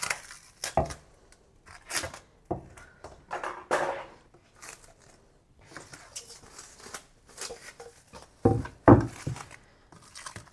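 Kitchen handling sounds: scattered knocks, clicks and rustling as utensils and wrapping are handled, with a couple of heavier thumps about eight and a half to nine seconds in.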